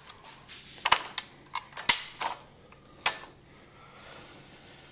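M60 machine gun's rear sight assembly being worked by hand: a series of sharp metal clicks and clacks as the sight leaf is moved and latched. The loudest snaps come about two and three seconds in.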